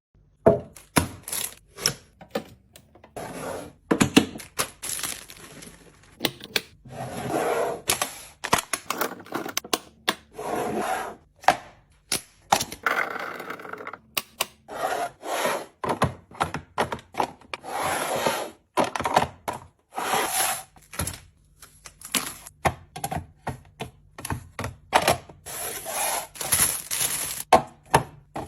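A fast, irregular run of clicks, clacks and light knocks, with short stretches of rustling. This is typical of plastic containers, lids and food packaging being handled and set down while a fridge is restocked.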